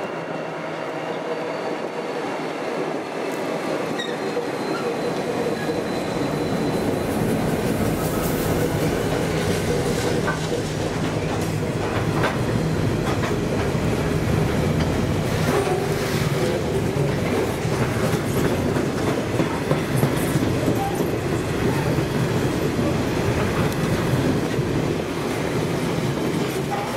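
Diesel locomotives hauling a grain train approach and pass close by, their engine drone building over the first several seconds. A long line of grain hopper wagons then rolls past, the wheels clicking over rail joints with occasional squeal.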